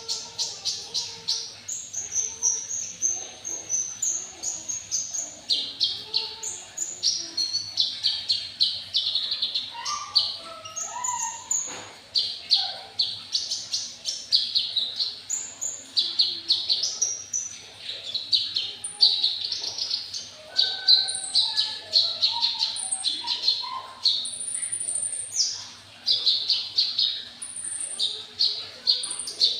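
Male olive-backed sunbird (kolibri ninja, 'konin') singing continuously in full song: rapid strings of very high, sharp chirps and fast trills, one phrase after another without a break.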